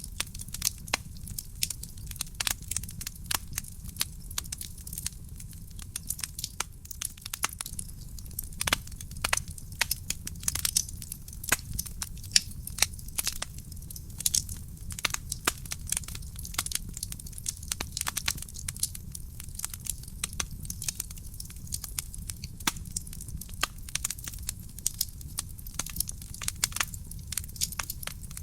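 Burning firewood crackling, with a dense run of irregular sharp snaps and pops, a few much louder than the rest, over a low steady rumble.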